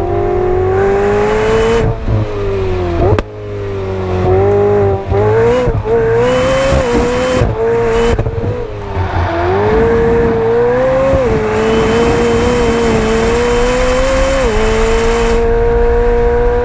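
McLaren 765LT's twin-turbocharged V8 running hard on track. Its pitch climbs steadily, then drops suddenly at each gear change, several times, with a sharp crack about three seconds in.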